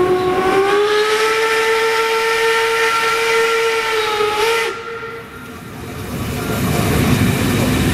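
Steam whistle of the class 01 steam locomotive 01 202 blowing one long chord-like blast with a hiss of steam. It rises slightly in pitch just after it starts and cuts off about four and a half seconds in. Then the running noise of the train builds back up.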